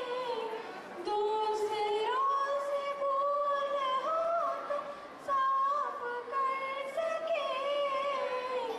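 A group of schoolgirls singing a song together into a microphone, a slow melody with each note held for about a second.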